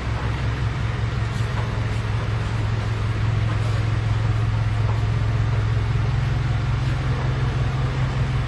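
A machine running with a steady low drone and no change in speed.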